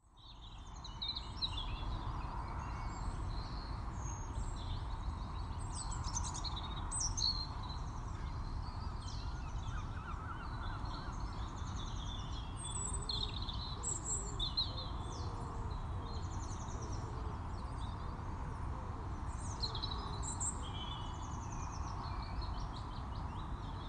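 Small birds chirping and singing on and off over steady low outdoor background noise, fading in over the first second.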